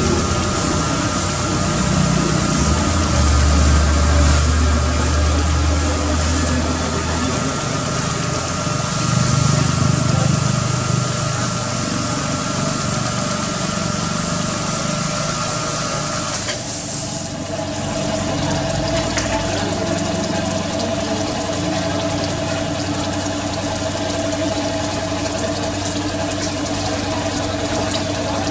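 Pressure washer spraying water over a car's engine bay, a steady hiss with a steady whine under it, plus a low rumble from about three to seven seconds in. The spray cuts off a bit past halfway, leaving a steady machine hum.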